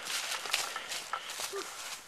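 Footsteps and rustling through brush: a run of irregular scuffs and crunches.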